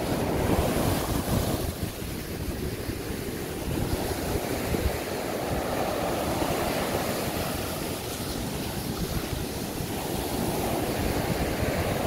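Heavy surf breaking and washing up a sandy beach in a steady rush, with wind buffeting the microphone in a low rumble.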